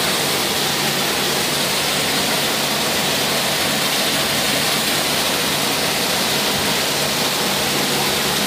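Hot-spring water pouring steadily down a rocky cascade into a pool: a constant rushing.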